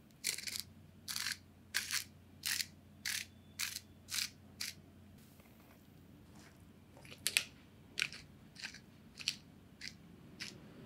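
A small shaker of salt and pepper shaken over food, the grains rattling in short quick strokes. The strokes come in two runs of about eight each, with a pause of a second or so between them.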